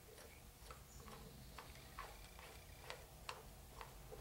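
Faint light clicking, about two clicks a second, as the crank bolt and its big washer are turned in by hand through the harmonic balancer of a Chevy 350 small-block.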